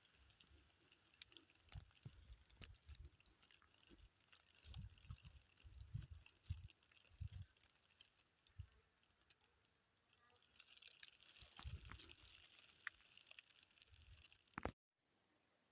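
Faint forest ambience: a soft high hiss with scattered small clicks and soft low thumps, ending near the end in a click and a sudden cut to a quieter, flat background.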